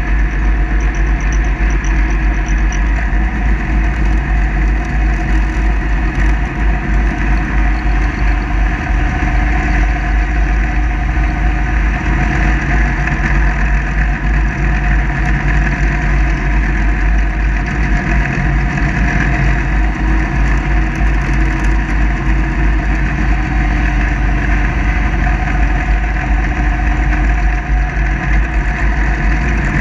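Kubota zero-turn mower's engine running steadily at an even pitch, with a strong low rumble.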